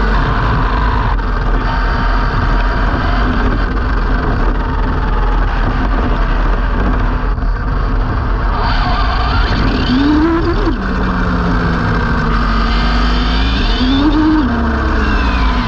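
Onboard sound of an Arrma Limitless RC speed car driving fast on tarmac, dominated by steady wind rumble on the camera microphone and tyre noise. The whine of its brushless electric motor and drivetrain rises and falls with the throttle, climbing sharply about ten seconds in and again near the end.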